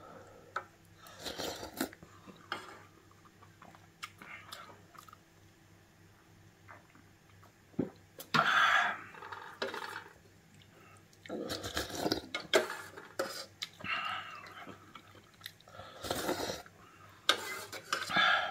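Eating ramen broth from a metal spoon: several short slurps a few seconds apart, with chewing and small clicks of the metal spoon against the yellow aluminium ramen pot in between.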